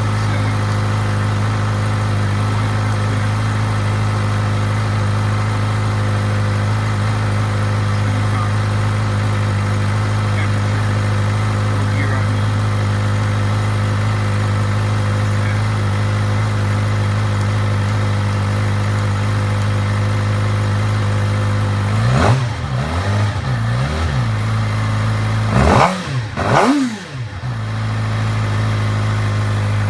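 2016 Suzuki GSX-R600 inline-four with its stock exhaust idling steadily. Late on it is blipped with the throttle several times in quick succession, the pitch rising and falling with each rev before it drops back to idle.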